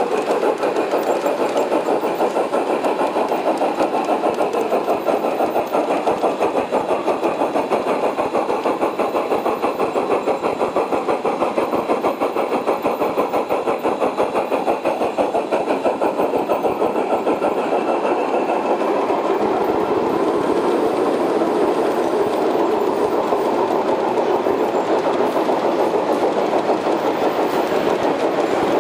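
Large-scale (G scale) model trains running on layout track: a steady, rapid clatter of wheels and motors.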